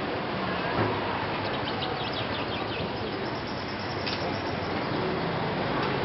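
Street-market ambience: a steady murmur of shoppers' voices and passing motorbikes, with a quick run of high bird chirps a couple of seconds in and another chirp a little later.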